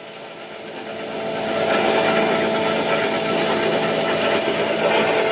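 18-inch wood planer running, a steady machine hum with a constant whine that builds in loudness over the first two seconds and then holds.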